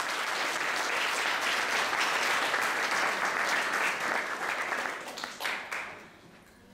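Audience applauding: many people clapping together, which thins out and dies away near the end.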